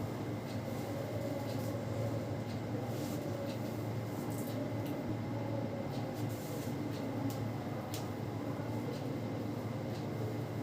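Hands massaging a person's head and hair, with soft rubbing and scattered faint clicks, over a steady machine hum.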